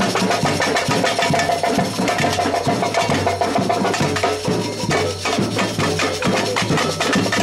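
Samba percussion band (batucada) playing a steady, dense rhythm on drums and hand percussion, with a continuous low drum pulse underneath.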